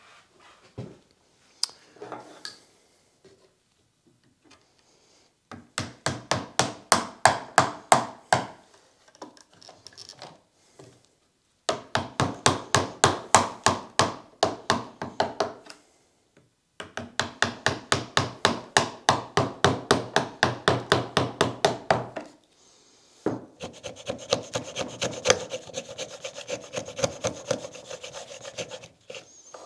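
Japanese pull saw cutting wood by hand in rapid, even strokes, about four to five a second, in four runs with short pauses between them, after a few light knocks at the start. These are relief kerfs sawn ahead of chiselling out the joint.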